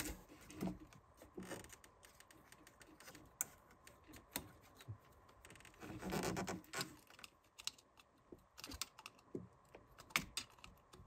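Faint, scattered small clicks and rustles of hands and a screwdriver working at a plastic quick-connect coolant hose fitting, trying to release its clip.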